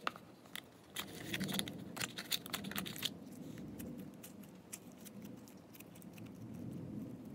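Slime being worked by hand into a plastic tub of other slimes: sticky clicks and crackling pops, thickest between about one and three seconds in, then softer squishing.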